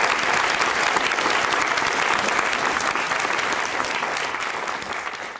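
Audience applauding, the clapping steady at first and then thinning out and dying away near the end.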